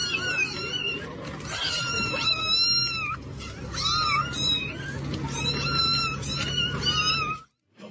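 A domestic cat meowing repeatedly in a series of long, drawn-out meows, one after another, until they stop suddenly near the end.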